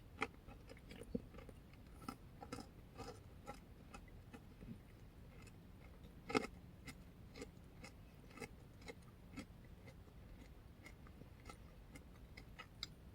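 Faint chewing of a granola and oatmeal yogurt parfait: scattered soft crunches and mouth clicks, one a little louder near the middle.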